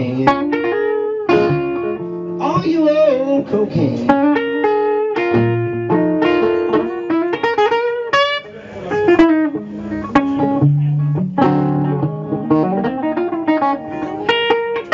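Blues guitar played live, a run of sharply picked notes over recurring low bass notes.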